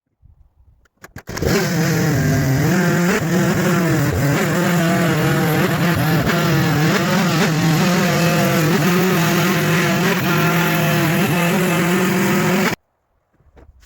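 Two-stroke chainsaw running at full throttle, its pitch wavering up and down under load as it cuts through wood. It cuts off abruptly near the end.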